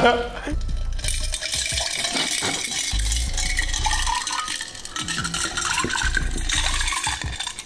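Ice cubes clinking and rattling against a glass carafe while a drink is poured from it into a glass, with the splash of the pouring liquid, in a string of small clicks.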